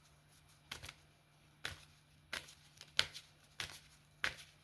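A tarot deck being shuffled by hand, a sharp card snap roughly every two-thirds of a second.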